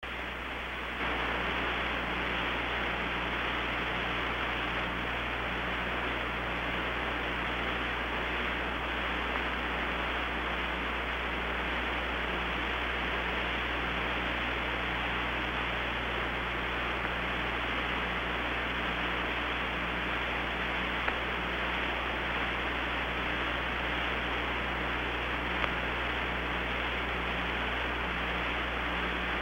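Steady radio static hiss from the Apollo 11 television downlink, with a low hum underneath and a faint low tone pulsing on and off about once a second. It comes in about a second in and then holds steady.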